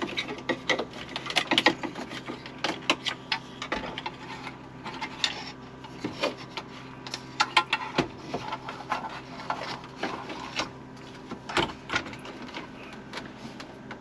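Plastic clicks, knocks and scraping at an irregular pace as a car head unit in its facia kit is pushed and test-fitted into the dashboard opening.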